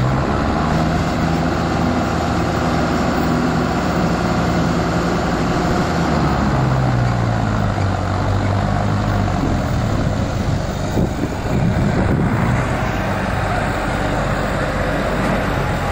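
Diesel tractor engines running under load, hauling trailers heavily loaded with sugarcane. The engine note falls in pitch about seven seconds in, then the sound turns rougher and more mixed as another tractor draws close.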